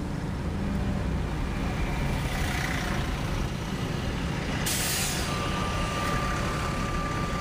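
Heavy work trucks running, with low engine rumble and road noise heard from inside a car. About five seconds in there is a short hiss of air like an air brake, then a steady high tone holds to the end.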